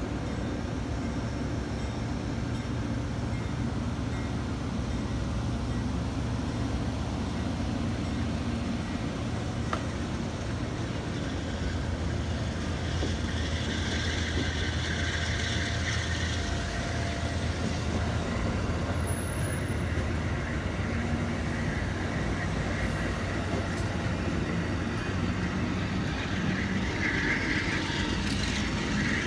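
Amtrak passenger train pulling out and rolling past: a steady rumble of wheels on the rails, with a higher hiss swelling up in the middle and again near the end.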